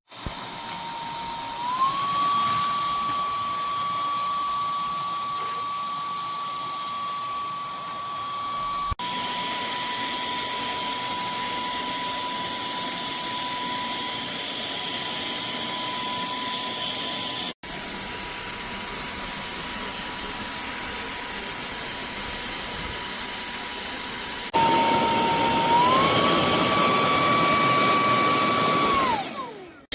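Cordless handheld vacuum cleaner running with a steady high motor whine. The whine steps up in pitch about two seconds in, steps up again and louder near the end, then winds down.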